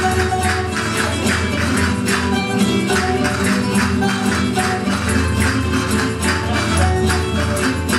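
Spanish jota folk music with sustained instrumental tones, over a steady run of sharp castanet clicks several times a second.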